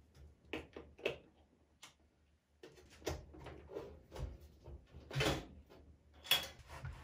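Sheet-metal top cover of a 1U rack server being unlatched, slid back and lifted off: a couple of sharp clicks, then metal sliding and scraping, with the longest scrape about five seconds in and a sharp clack a second later.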